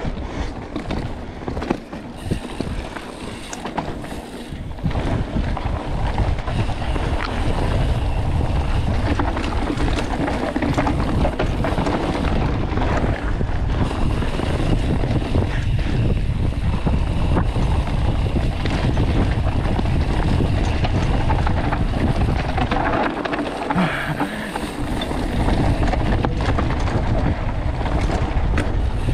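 Mountain bike rolling fast down a dirt forest trail: continuous wind buffeting on the microphone over the rumble of the tyres, with small knocks and rattles as the bike runs over the rough ground.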